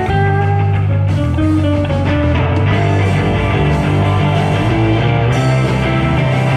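Rock band playing live, an instrumental passage with a guitar melody over a steady bass line.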